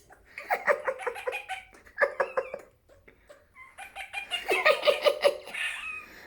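Senegal parrot making its mimicked noises: three bouts of rapid, stuttering, chattering calls with short pauses between.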